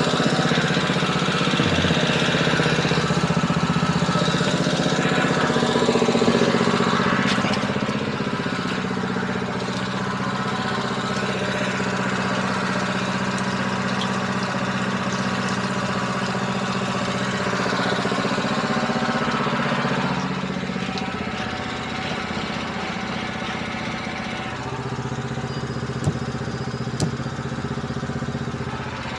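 An engine running steadily at an even speed. It gets a little quieter about two-thirds of the way through, and two sharp knocks come near the end.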